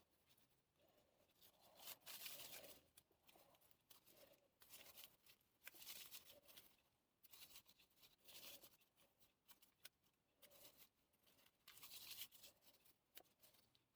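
Faint, intermittent rustling and scraping of hands handling materials, in short soft bursts every second or two.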